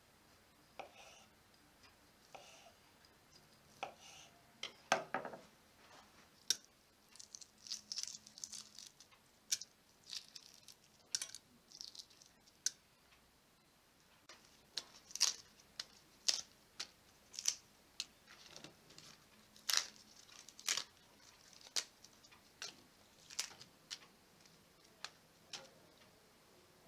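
Hands preparing food: a knife slicing through boiled new potatoes on a bamboo cutting board, then boiled eggs being cracked and peeled, giving many short sharp crackles and clicks.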